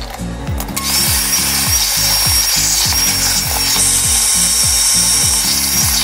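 Cordless drill running steadily for about five seconds with a high whine, starting about a second in and stopping near the end. Background music with a regular beat plays underneath.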